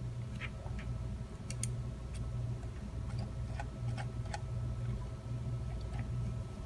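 Sparse, irregular light clicks from a computer mouse and keyboard, over a low steady electrical hum.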